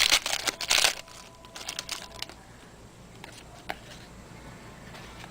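Trading-card pack wrapper crinkling as a pack is opened, densest for about the first second, then a quieter stretch with a few light clicks and rustles of handling.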